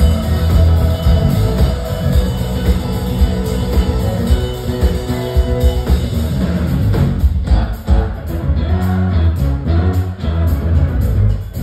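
Live funk band playing an instrumental led by a Sterling by Music Man signature electric bass, with organ, guitar and drum kit, loud and heavy in the low end. About halfway through, the band shifts from a continuous groove to short, clipped hits with brief gaps between them.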